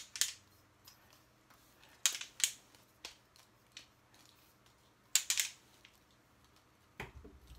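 Compact travel tripod being handled: a few short clusters of clicks and rustles a couple of seconds apart as it comes out of its fabric bag and its legs are swung open, with a soft knock near the end.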